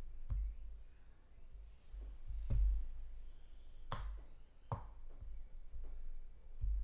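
A computer mouse clicking a handful of times, four sharp clicks spread over several seconds, over a low steady background hum.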